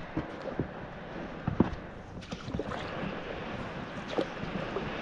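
Small boat being rowed across calm water: water swishing and trickling around the oars and hull, with a few short knocks and splashes, the loudest about a second and a half in.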